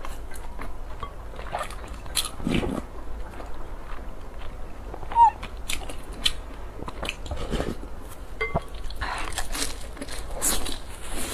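Close-miked eating sounds: a person sipping milky soup from a wooden spoon and chewing, with many small wet mouth clicks and brief slurps.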